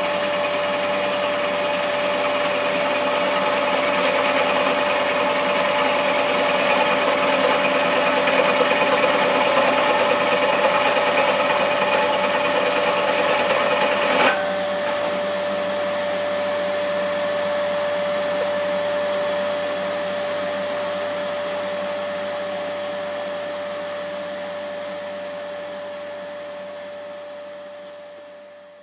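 Scheppach SD1600V scroll saw cutting through thick aluminium plate: a steady motor hum with a harsh rasping of the blade in the metal. About halfway through, the rasping stops abruptly after a small click, and the saw runs on unloaded with just the motor and blade tone. The sound fades out near the end.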